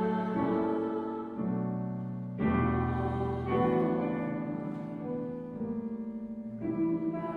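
Keyboard instrument playing slow, held chords that change every second or two, with a wavering tremolo on a held chord a little past the middle.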